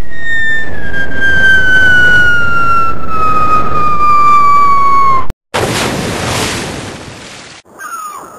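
A cartoon falling-whistle sound effect: one long whistle sliding steadily down in pitch over about five seconds, over a rough rushing noise. It cuts off abruptly and is followed by a crash-like burst of noise that fades away over about two seconds, with a short high falling chirp near the end.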